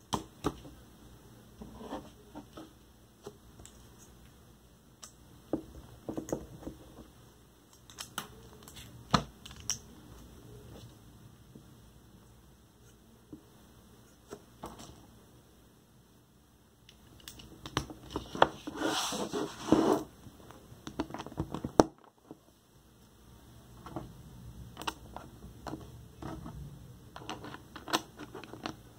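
Plastic Lego bricks clicking and clattering as they are handled and pressed together: scattered sharp clicks, with a denser stretch of clattering about two-thirds of the way through.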